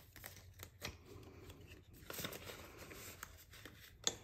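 Hands handling polymer banknotes and a plastic binder pocket: soft rustling and crinkling with scattered light clicks, and one sharper click near the end.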